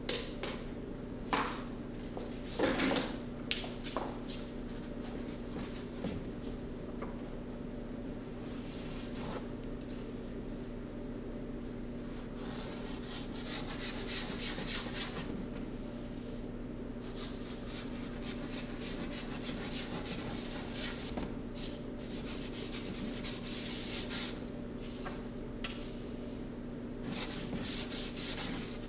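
Paintbrush scrubbing paint onto a board panel in short runs of scratchy rubbing, heaviest around the middle and near the end, over a steady low hum. A few light knocks in the first seconds.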